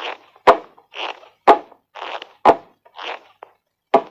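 Cartoon sound effect: a breathy, whooshing noise followed each time by a sharp knock, repeating about once a second, four times.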